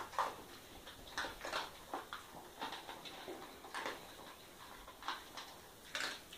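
Small dog eating from a plastic bowl: irregular crunching clicks of chewing and food knocking against the bowl.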